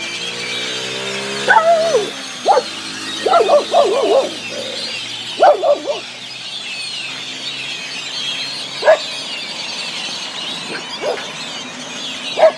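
Large flock of blackbirds chattering, a dense and steady mass of high calls, with several louder short calls of wavering pitch standing out over it.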